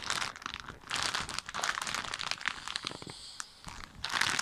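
Plastic packaging crinkling and rustling as it is handled, in irregular crackles, quieter for a moment past the middle and with a loud crinkle near the end.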